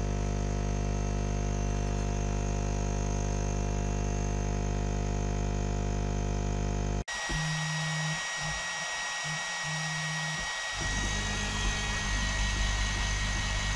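TwoTrees TS2 diode laser engraver running, with a steady fan-like rushing hum. About seven seconds in it cuts abruptly to a steady high whine, with the stepper motors' tone starting and stopping in short bursts for a few seconds before a steady low hum returns.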